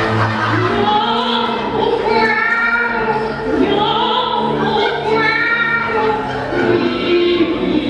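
Music with singing voices holding long notes over an accompaniment.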